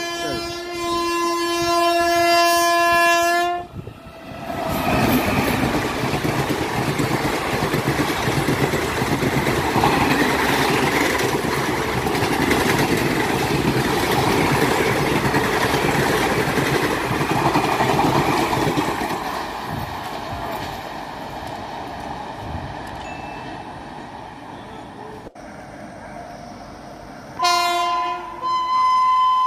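An Indian Railways electric locomotive horn sounds one long blast for a few seconds. Then an express train of ICF coaches passes close by, with a steady rumble and wheel clatter that slowly fades away. Near the end, a WAP-7 electric locomotive sounds its horn as it approaches.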